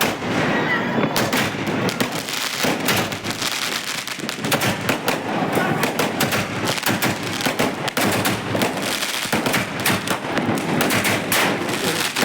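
Fireworks cracking and banging in rapid, irregular succession throughout.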